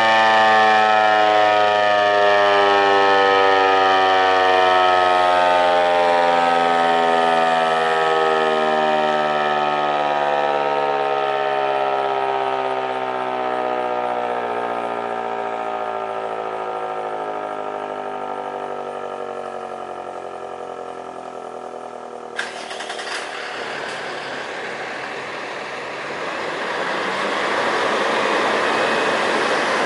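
ASC T-128 outdoor warning siren winding down at the end of a test, its pitch falling steadily as it slows and fades. About two-thirds of the way through comes a sudden click, then a steady rushing noise that grows louder near the end.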